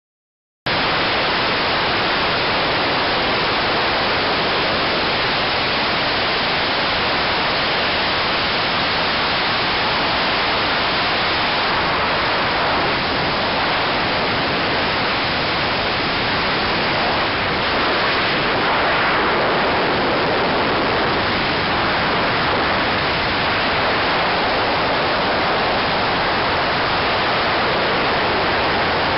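Loud, steady rush of airstream noise on a camera held outside the cockpit window of a Diamond DA42 Twinstar in flight on approach, cutting in abruptly just under a second in.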